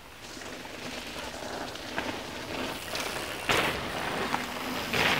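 Mountain bikes riding past on a dirt forest trail: tyre noise over the dirt grows louder as the riders come closer, with two loud passes as bikes go close by, about three and a half and five seconds in.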